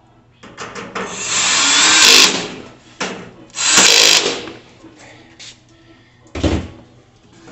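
Power drill driving bolts into the grill cart's legs in two runs, the first about two seconds long and the second about a second, followed by a short thump.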